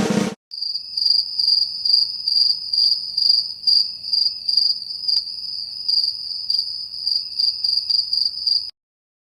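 Crickets chirping, a sound effect: a steady high trill pulsing about two to three times a second, which stops abruptly near the end.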